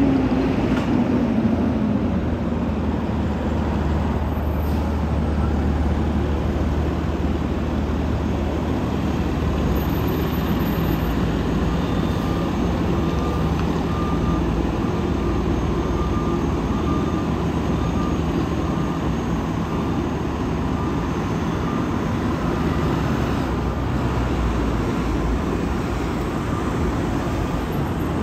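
Fire engine's diesel engine running steadily as the truck manoeuvres. A backup alarm beeps at an even pace through the second half, as the engine reverses into its bay.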